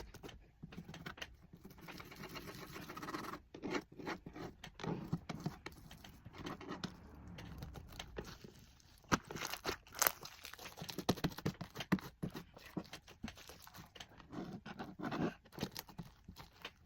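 Homemade slime, glue set with Tide laundry detergent as the activator, being mixed and worked by hand, giving irregular sticky clicks, crackles and tearing sounds that come thicker in the second half.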